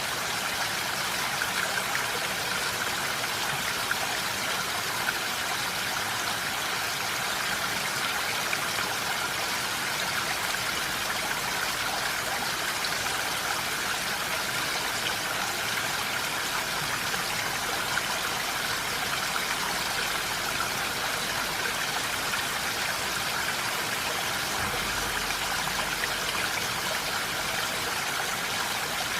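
Steady rain falling in a forest: an even, unbroken hiss of water with no pauses.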